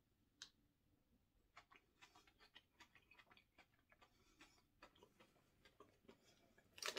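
Near silence broken by faint, irregular small clicks, a few a second, starting about a second and a half in.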